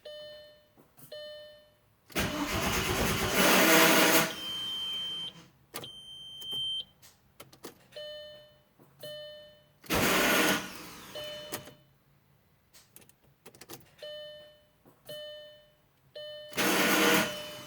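Three attempts to start a car that will not start: each time the starter runs for one to two seconds with a harsh, even whirring noise and stops without the engine catching. Dashboard chimes sound about once a second between the attempts. This is a no-start after a Fidanza flywheel install that a new starter has not cured.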